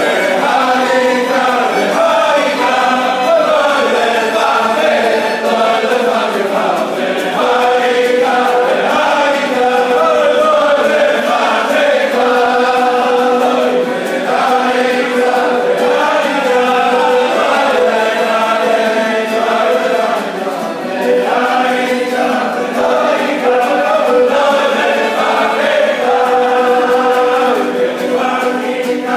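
A large group of men singing a Hasidic dance melody together in unison, loud and unbroken.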